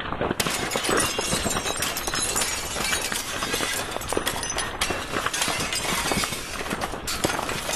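Sound effect of glass shattering, with a dense, continuous clatter of clinking shards that starts suddenly and cuts off abruptly at the end.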